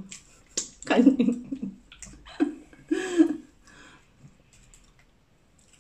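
A woman's voice in three short murmured sounds in the first three and a half seconds, not picked up as words, then a quieter stretch with a few faint clicks.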